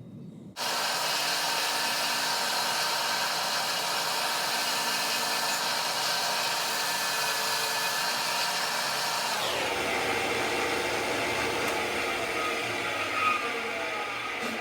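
Electric belt sander switched on and running at high speed, with a high-pitched motor whine. About nine and a half seconds in its pitch drops and it keeps running at the lower pitch.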